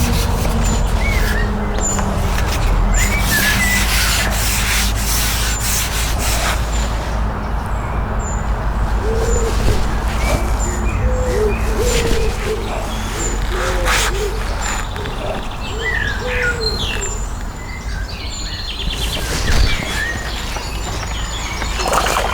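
Wild birds calling and singing, with one short high chirp repeated about once a second and lower sweeping calls midway. Under them runs a steady low rumble, with scattered knocks and rustles.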